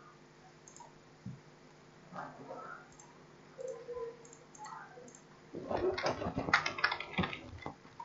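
Computer keyboard typing: a quick run of keystrokes starting a little past the middle and lasting about two seconds.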